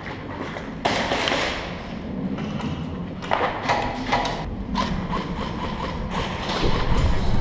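Footsteps scuffing on gritty concrete and rustling gear, with several dull thuds.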